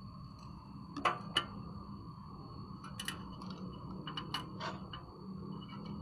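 A handful of sharp metallic clicks and taps from small parts and tools being handled: two about a second in, then a cluster a second or two later. A faint steady high whine runs underneath.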